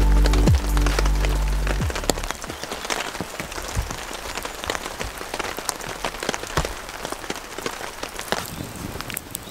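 Background music with a deep bass ends about two seconds in. After that, steady rain falls, with many drops pattering on the tarp overhead.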